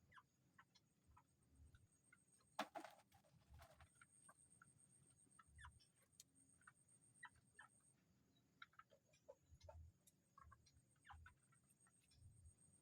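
Faint, scattered short bird calls and clicks, with one sharper click about two and a half seconds in, over a faint steady high-pitched tone.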